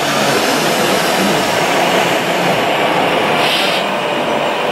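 Radio-controlled model trucks driving, with a steady mechanical running noise and a short hiss about three and a half seconds in.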